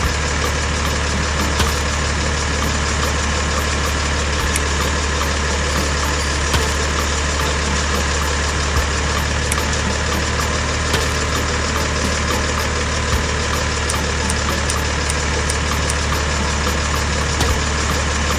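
An engine running steadily at idle, with a few light clicks scattered through it.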